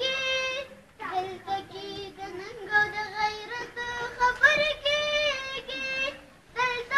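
A boy singing solo and unaccompanied in long, held melodic lines, breaking for breath about a second in and again near the end.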